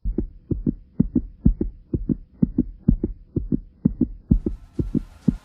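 Heartbeat sound effect: paired low thumps, lub-dub, about two beats a second. A rising hiss joins near the end.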